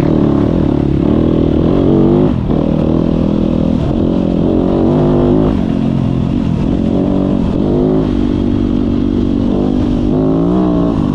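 Dirt bike engine heard from the rider's seat, its pitch rising and falling several times as the rider opens and eases the throttle along a dirt road.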